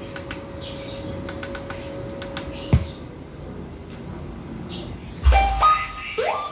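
Scattered clicks and a single low thump, then bass-heavy music starts about five seconds in through a Tsunami Storm 15 subwoofer and a mid-high speaker for a sound check.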